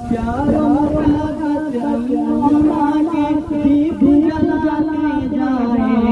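Young voices singing a patriotic Urdu–Hindi nazm, a slow melody drawn out in long, wavering held notes.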